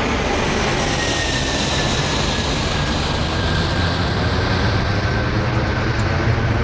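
Antonov An-225 Mriya's six turbofan engines passing overhead and flying away: a steady, loud jet noise with a thin whine that slowly drops in pitch.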